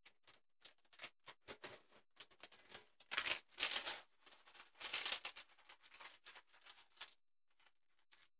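Packaging rustling and crinkling with small clicks and taps as wrapping is taken off a new acoustic guitar; the rustle is loudest in two spells around the middle and stops about a second before the end.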